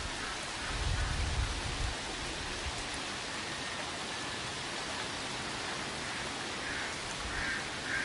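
Steady rushing hiss of flowing stream water, with low wind gusts rumbling on the microphone about a second in and again near the end.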